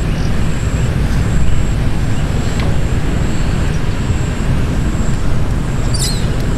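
Steady low rumbling background noise, with a faint high whine on and off and a brief high squeak about six seconds in.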